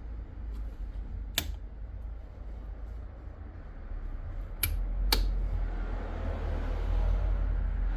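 Three sharp clicks, one about a second in and two close together around five seconds, over a steady low rumble that grows louder after the last click.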